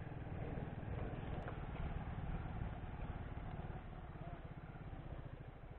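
Motorcycle engine running steadily at low revs, easing off slightly after about four seconds.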